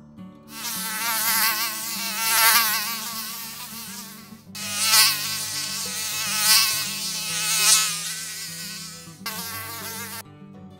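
Mosquito whining in flight, a high buzz wavering in pitch and swelling louder and softer as it passes. It breaks off briefly twice and stops shortly before the end.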